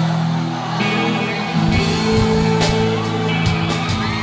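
Loud live pop-ballad music with guitar, held chords ringing through a concert hall sound system.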